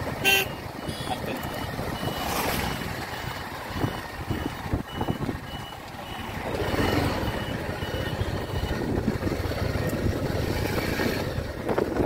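Motorbike being ridden over a rough track: steady engine and road rumble. A faint high beep repeats about two or three times a second and stops about halfway through.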